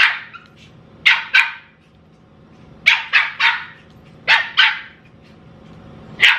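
Pomeranian puppy barking in short, high-pitched yaps, in quick clusters of two or three with short pauses between, as it begs for food held out of its reach.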